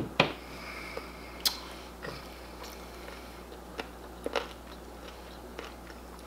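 Messy open-mouthed chewing with wet lip smacking of fufu and egusi soup: irregular sticky smacks and clicks, the sharpest right at the start and about a second and a half in.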